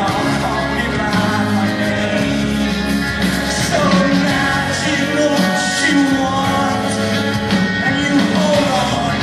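Live amplified rock band music with acoustic guitar, with a singing voice heard at times.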